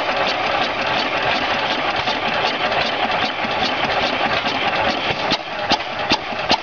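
5 HP Hercules single-cylinder hit-and-miss engine running, a dense mechanical clatter broken by sharp pops as it fires; the pops stand out louder in the last second or so.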